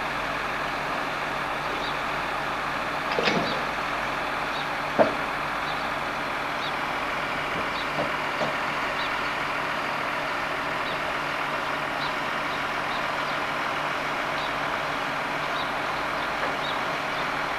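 A crane's engine running steadily, with a few knocks; the sharpest knock comes about five seconds in.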